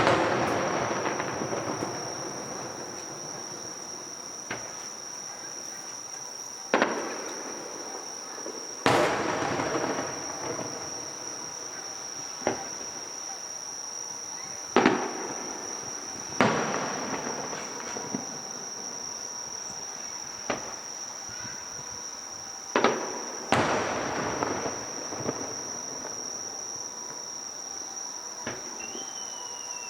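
Aerial fireworks bursting: about eight loud, sharp bangs spaced a few seconds apart, with some fainter pops between, several of them trailing off in a crackling tail. Under the bangs runs a steady, high chirring of insects.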